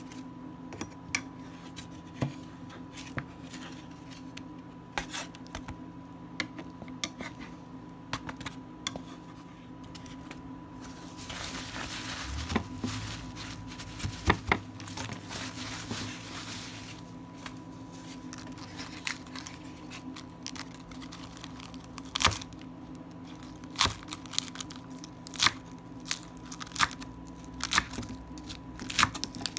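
Food prep on a wooden cutting board: scattered knife and hand taps, then a stretch of paper towel tearing and crumpling in the middle. Near the end a serrated knife cuts through lettuce in crisp strokes about one a second, over a faint steady hum.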